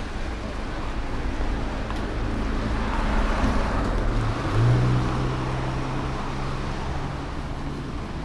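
A motor vehicle passing: a swell of traffic noise, then a steady engine hum starting suddenly about four and a half seconds in and fading near the end.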